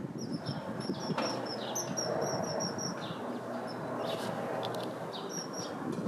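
Common kingfisher calling: a rapid run of short, high, thin piping notes for the first few seconds, and a few more about five seconds in, over a steady low background hiss.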